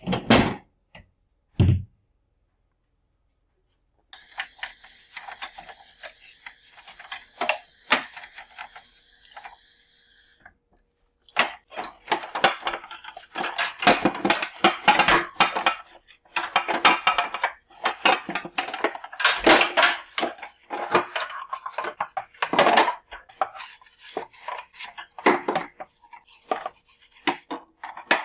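Hard plastic and glass fridge shelves and bins being handled and set down, knocking and clattering again and again. Through the first part a steady hiss runs beneath the clicks.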